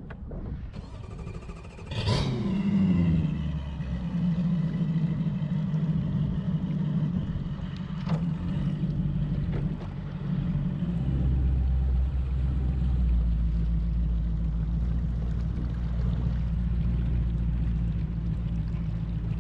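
Brand-new 250 hp Mercury Four-Stroke Pro XS V8 outboard started with the ignition key. It catches about two seconds in with a brief rev that drops back, then idles steadily.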